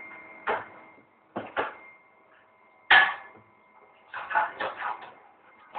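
A series of irregular knocks and clatters from hard objects being handled. The loudest comes about three seconds in, followed by a quick flurry about four to five seconds in, over a faint steady hum.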